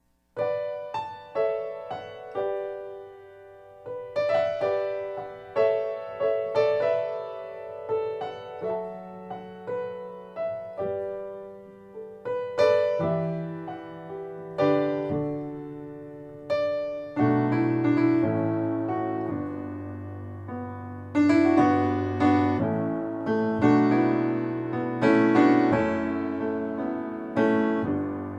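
Piano music playing a slow introduction, single notes and chords fading after each strike, with deeper bass notes joining about two-thirds of the way through.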